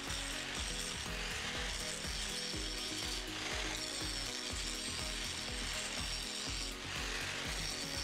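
Angle grinder's cut-off disc grinding steadily through a motorcycle suspension fork tube, a continuous hissing cut. Background music with a regular beat plays underneath.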